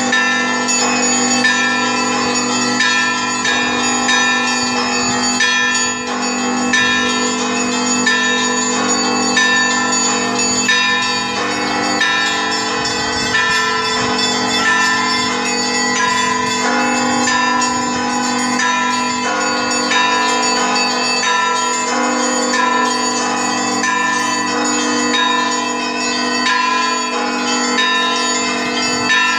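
Russian Orthodox church bells ringing without pause. Several bells of different pitches are struck in quick succession over the sustained hum of the larger bells.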